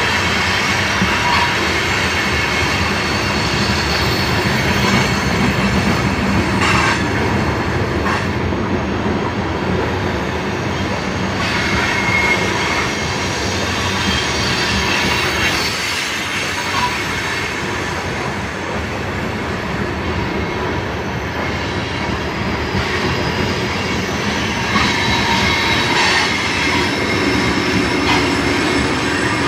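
Loaded coal hopper cars of a freight train rolling past on a curve while climbing a grade: a steady rumble of steel wheels on rail, with wheel squeal rising and fading now and then.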